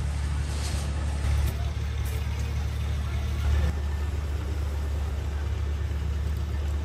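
A small stationary engine running steadily with a low hum, driving a belt-driven sheet-metal drum machine. A few light knocks and clicks sound over it.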